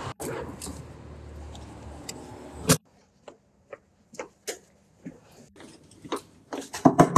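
Outdoor background noise with a few clacks, ending in one sharp clack. Then steady footsteps, a few short steps a second, and near the end a burst of louder, sharper knocks.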